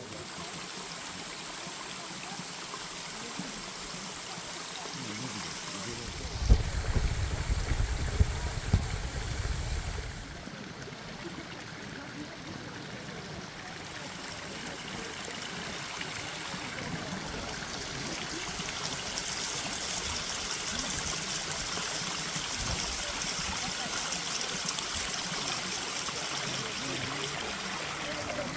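Rushing water of the Siklawa mountain waterfall, a steady hiss that grows louder in the second half. Low rumbling buffeting of the microphone runs for a few seconds starting about six seconds in.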